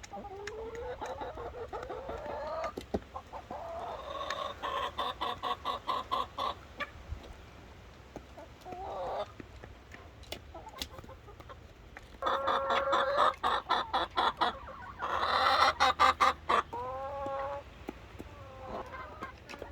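Domestic chickens clucking and calling. Runs of rapid clucks come several times, the loudest about three-quarters of the way through, between drawn-out rising and falling calls.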